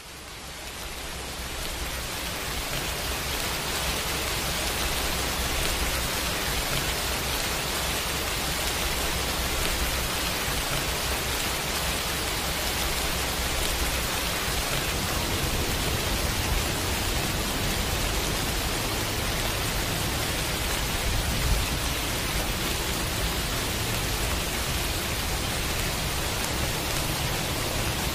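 Steady heavy rain that fades in from silence over the first few seconds, then holds as an even, hissing downpour with a low rumble underneath.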